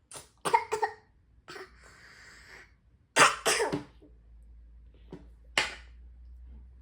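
A toddler coughing: a quick cluster of short coughs at the start, a louder bout a little after three seconds, and a single cough near the end.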